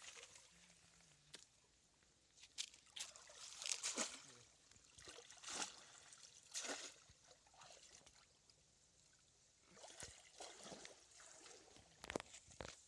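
Faint splashing and trickling of shallow pond water as a woven bamboo fish trap is moved and lifted by hand, in a series of short, irregular splashes, one of them near the end.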